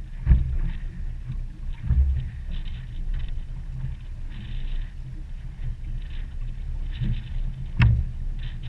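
Wind rumbling on the microphone and choppy water lapping against a small boat's hull. A few knocks on the boat are heard, the loudest a little before the end.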